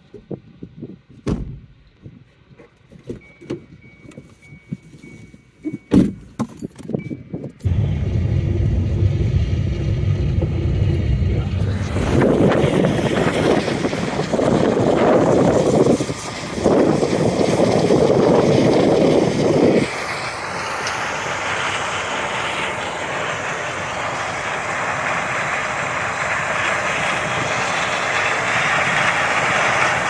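John Deere S680 combine harvester running while harvesting corn, with a tractor and grain cart working alongside. It is faint at first, with scattered knocks on the microphone. About eight seconds in it turns suddenly loud and close: a steady heavy machine rumble through to the end.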